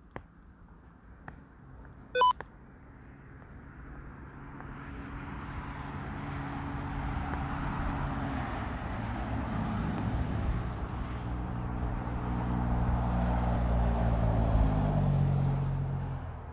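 A short electronic beep about two seconds in. Then a motor vehicle's engine grows slowly louder as it approaches and passes, its note dropping in pitch near the end.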